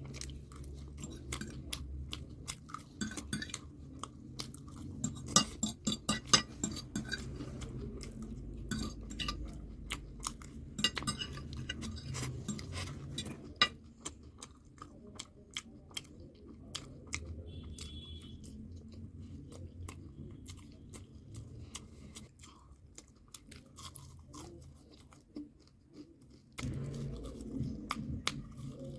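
A person chewing and crunching food, with frequent sharp clicks and clinks of cutlery and dishes; the crunching is heaviest in two stretches early and midway.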